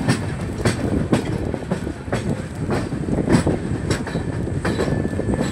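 Express train's coach wheels running over rail joints and junction points, a steady rumble broken by irregular sharp clacks, heard from on board the moving train.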